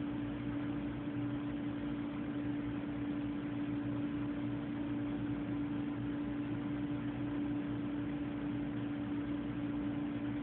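A steady hum with a constant hiss beneath it, unchanging, with no separate sounds.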